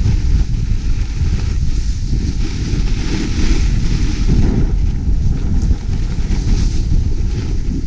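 Wind buffeting the microphone of a skier moving fast downhill, a heavy steady rumble, with the hiss of skis scraping over groomed snow that swells in the middle and again near the end.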